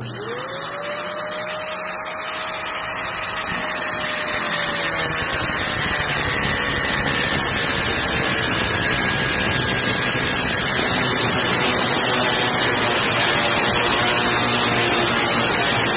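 An angle grinder's motor starts and winds up, then its abrasive cut-off disc grinds steadily through a metal pipe clamped in a cut-off stand, getting slightly louder as the cut deepens.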